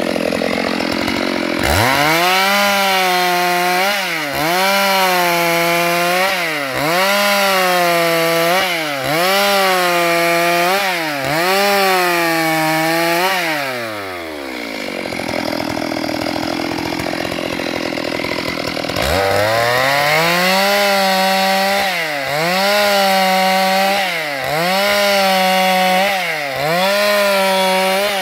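Stihl MS 382 two-stroke chainsaw ripping a plank lengthwise, at full revs that sag and recover about every second and a half as the chain bites under load. About halfway through it falls back to idle for several seconds, then revs up again and resumes the cut.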